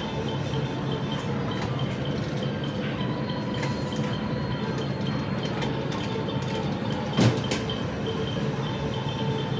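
Cup coffee vending machine running through its brewing cycle: a steady mechanical hum with a few light clicks, and one sharp clack about seven seconds in.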